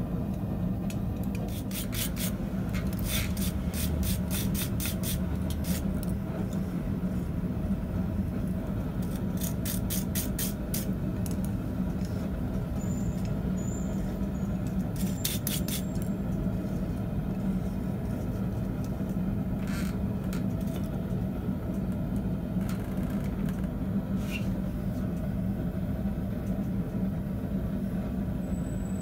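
Quick runs of hammer blows on a small steel rod on the anvil, three bursts of evenly spaced strikes with a few single knocks later, over a steady low hum.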